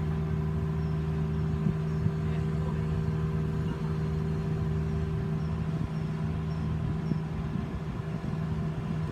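A vehicle's engine running steadily at a constant, raised speed, one even note with its overtones.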